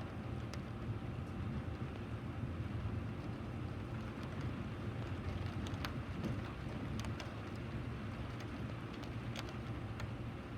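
Steady rain falling, with a low, even rumble and scattered sharp ticks of individual drops striking.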